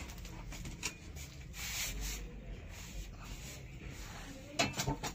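Rustling of stiff ruffled net fabric on a girls' party dress being handled, with a quick cluster of sharp knocks near the end.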